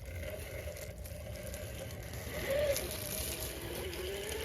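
Redcat Vertex 6 RC rock crawler's electric motor and drivetrain whining, the pitch wavering up and down with the throttle, over a faint hiss. The slipper clutch is slipping, which the owner takes as a sign it needs tightening.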